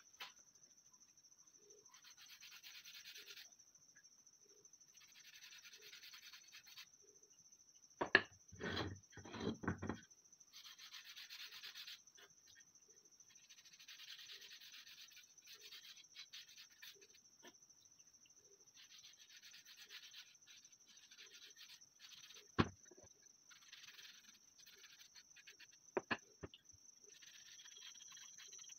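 Hand rubbing wood stain onto AK-47 wooden handguards in short, soft strokes. The wood knocks against the table several times in a burst about eight seconds in, and sharply twice later; these knocks are the loudest sounds.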